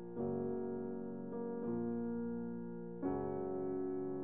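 Background piano music: slow sustained chords, a new chord struck just after the start and another about three seconds in, each fading away gently.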